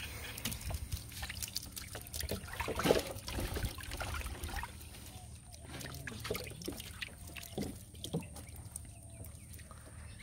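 Water trickling and dripping from a wet cast net and splashing into the canoe, with scattered small knocks and a louder splash about three seconds in.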